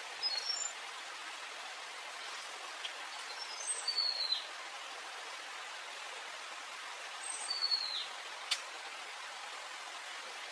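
A bird sings the same short phrase three times, about every four seconds: a few quick high notes ending in a downward-sliding whistle, over a steady hiss. A single sharp click about eight and a half seconds in.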